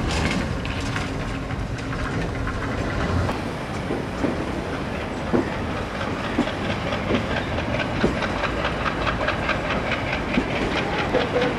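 Passenger train running along the rails, heard from inside the coach at an open window: a steady rumble with wheel clatter over rail joints. The clatter becomes quicker and more even in the second half.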